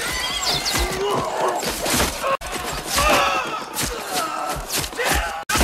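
Battle din from a film soundtrack: men screaming and crying out over repeated sharp impacts of arrows striking wooden shields.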